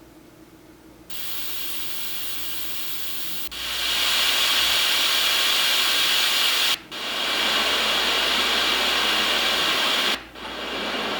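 HoMedics HDS-2000 sleep sound machine playing its white-noise sounds, a steady hiss. The hiss starts about a second in and turns louder and brighter a couple of seconds later. It breaks off briefly twice, each time coming back as a different, slightly softer hiss.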